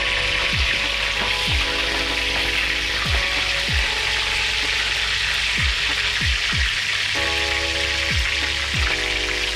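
Pieces of Spanish mackerel frying in hot oil in a cast-iron skillet, a steady dense sizzle. Background music with a regular beat plays underneath.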